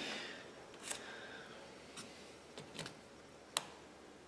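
A few faint, scattered clicks and light taps, about five in four seconds, the sharpest about three and a half seconds in.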